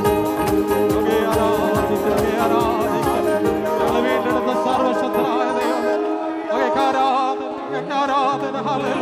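Group of worship singers singing a Malayalam Christian worship song with electronic keyboard accompaniment. A steady beat runs through the first half and thins out after about five seconds.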